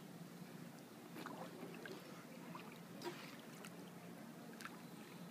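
Soft, faint splashing of swimming-pool water as a small child paddles along, a few light splashes scattered through, over a faint steady low hum.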